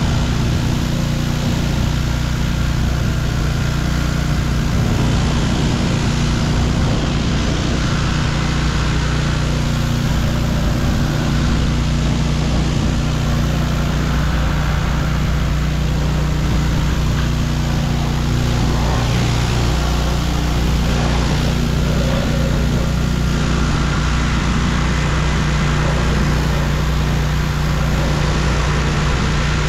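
A gas pressure washer's small engine running steadily, with the hiss of high-pressure water spraying.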